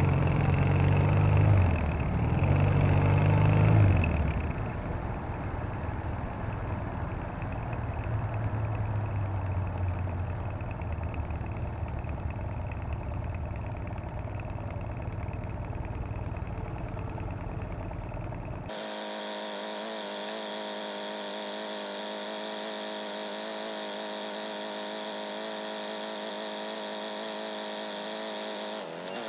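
Triumph Bonneville parallel-twin motorcycle engine on the move: it revs up hard in the first few seconds, then runs more quietly. About two-thirds of the way through the sound changes abruptly to a steady, unchanging drone.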